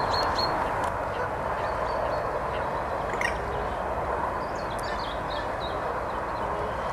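Steady hum of a dense swarm of small flying insects, with a few faint, short high bird chirps over it.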